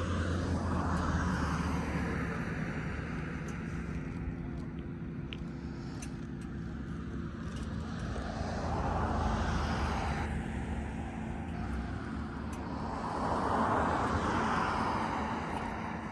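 Road traffic passing: vehicles swell up and fade away about three times, over a steady low hum.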